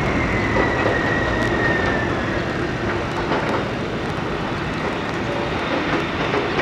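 Steady, loud vehicle noise with a high whine that slowly falls in pitch over the first two seconds or so.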